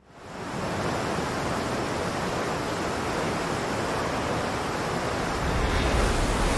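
Heavy waterfall rushing: a steady hiss of falling water that fades in at the start and swells with a deeper rumble near the end.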